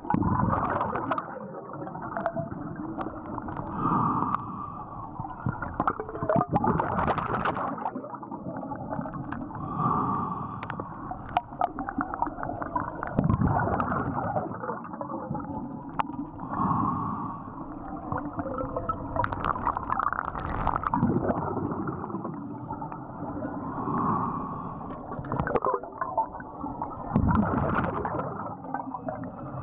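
Scuba diver breathing through a regulator, heard underwater: a bubbling rumble of exhaled air swells and fades every three to four seconds, with a few brief clicks.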